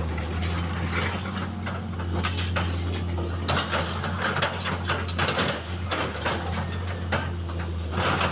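Steady low drone of road-construction machinery running, with irregular clicks and rattles over it that are thickest in the middle.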